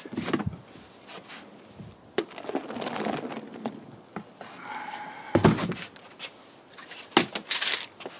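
A plastic storage tote being lifted, tipped and knocked while thick pre-made foam slides out of it into a tub of cement slurry, the stage where foam is added to make aircrete. There are several sharp plastic knocks, the loudest about halfway through and a cluster near the end, with a soft rush of sliding foam between them.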